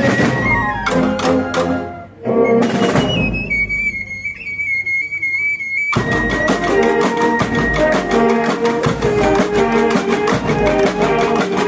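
Municipal wind band playing: full chords with percussion crashes, then a single high held note for a few seconds, then the whole band again over rapid, even drum strokes from about halfway.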